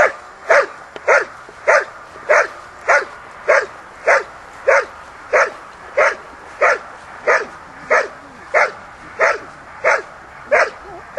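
A dog barking in a steady, even rhythm, about one bark every 0.6 seconds, at a protection helper holding a bite sleeve in front of it.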